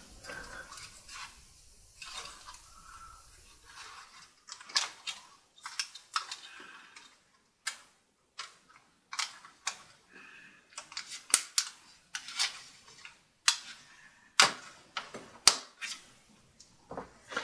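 Irregular small clicks and light taps of fingers working at a laptop's plastic parts, seating the palm rest's ribbon cable into its connector on the motherboard, with the sharpest clicks in the second half.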